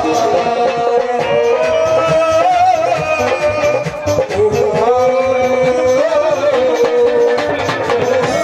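Devotional folk music: a long, gliding melody line over rattle and drum percussion.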